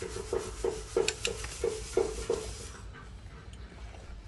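Metal ladle scraping against a pot of boiling soup in short strokes, about three a second, each with a faint metallic ring; the strokes stop about two and a half seconds in.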